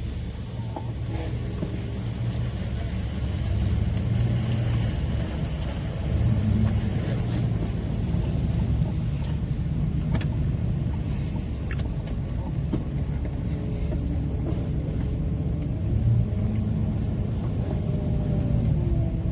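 Car running and moving, a steady low rumble of engine and road noise heard from inside the cabin, with a few faint clicks.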